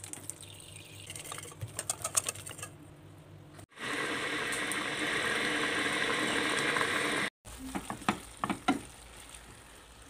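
Food sizzling in a frying pan: a steady hiss for about three and a half seconds in the middle, cut in and out abruptly. Light clicks and taps come before it, and a few knocks and scrapes, as of stirring, after it.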